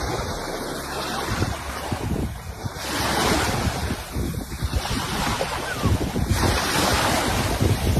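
Sea surf washing ashore, with wind buffeting the microphone; the wash swells about three seconds in and again a little past six seconds.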